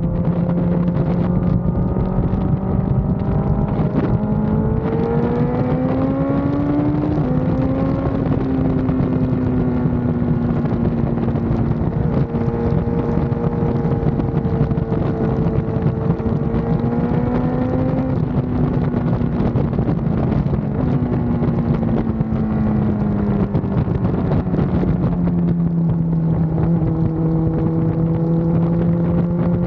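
BMW S1000RR's inline-four engine running under way. The revs climb a few seconds in, drop sharply at a gear change, hold high through the middle as the bike runs at speed, then fall off past the middle as it slows and settle low, with wind rushing over the microphone.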